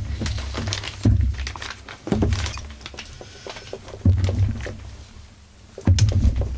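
Irregular thunks and clatter of metal parts and tools being handled during chainsaw disassembly, with four louder knocks and light clicks between them.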